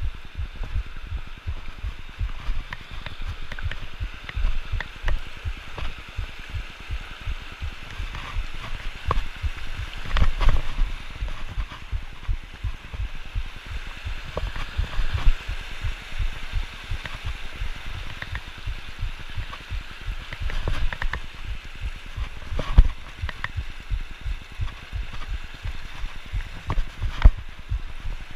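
Mountain creek rushing and splashing steadily over rocks, with a constant low buffeting rumble on the microphone and a few sharp knocks.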